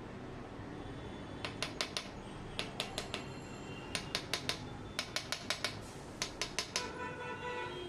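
A thin metal blade picking and scraping at dried cement on the rim of a stainless steel floor drain grating and the tile beside it, making quick groups of sharp metallic clicks, three to six at a time, about once a second.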